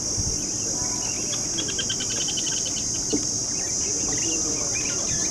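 Steady high-pitched drone of insects, with rapid, quick short chirps of sociable weavers starting about a second in.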